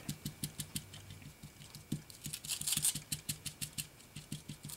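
Felt-pad alcohol ink applicator dabbing onto aluminium foil laid over a tag, stippling the ink: a run of light, quick taps, several a second.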